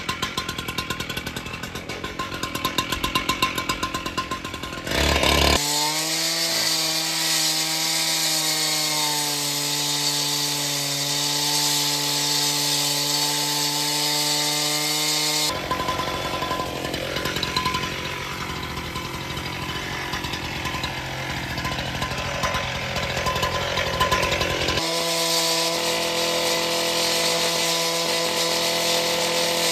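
Concrete demo saw running and cutting concrete: a rough, noisy start, then the engine holding a steady high whine, its pitch sagging slowly under load through the middle, then steady and high again near the end.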